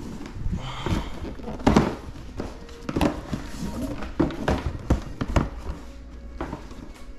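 Cardboard sneaker boxes being handled: a run of knocks and thuds as boxes are shifted on the stack and a lid is lifted off, with scraping of cardboard between them.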